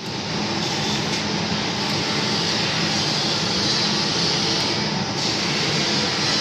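CNC machine tool running: a steady, continuous mechanical whir with a strong hiss.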